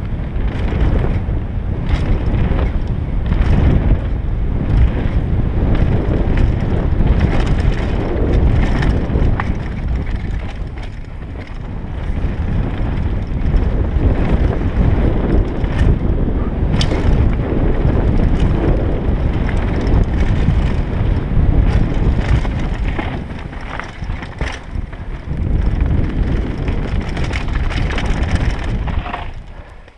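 Wind buffeting a helmet camera's microphone during a fast mountain-bike descent, over the rumble of knobby tyres on a dirt trail and the bike rattling on bumps. Dips briefly twice and drops away sharply near the end.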